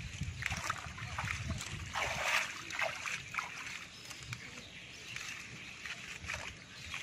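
Shallow ditch water sloshing and splashing lightly as a person works in it, mixed with the rustle of leafy stalks being pulled and handled. The sounds come in irregular short bursts.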